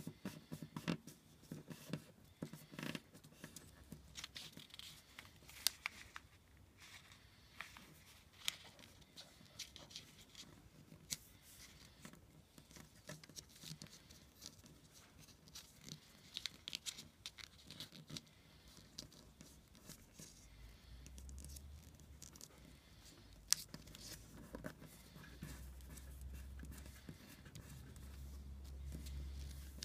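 A sheet of origami paper being folded and creased by hand: soft rustling with many sharp crackles and clicks as fingers press and pinch the folds flat on a table.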